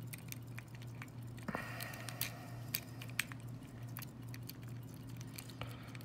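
Faint, irregular metallic clicks and scratches of a hook pick lifting and setting the pin tumblers of a Master Lock lockout padlock under light tension from a tension wrench. A steady low hum runs underneath.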